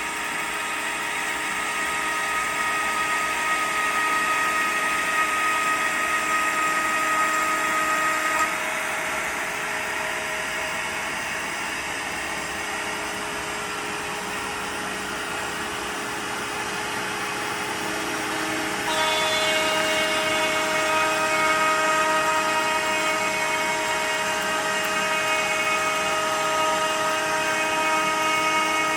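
CNC router spindle running as the bit cuts a pre-finished shelf board, a steady high-pitched whine. Its tone changes about eight seconds in, and again about nineteen seconds in, when it gets a little louder.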